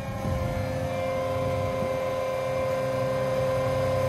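John Deere 8320R tractor's diesel engine running steadily with a hum, growing slightly louder, as the tile plow is raised out of the ground.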